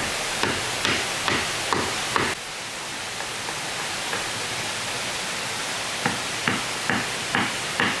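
Repeated blows of a hand tool, about two a second, in two runs: six at the start and five more from about six seconds in. Steady rushing water noise from the waterfall runs underneath.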